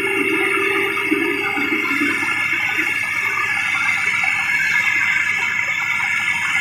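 Maxxi Bimo combine harvester running steadily: a dense machine noise carrying several steady whining tones, with a lower hum that fades out about two seconds in.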